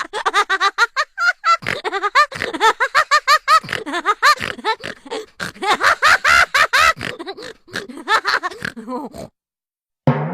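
Cartoon sound effect of a fast, high-pitched comic voice jabbering and giggling in quick syllables that swoop up and down in pitch, stopping about nine seconds in. Just before the end a single twanging note strikes and rings away.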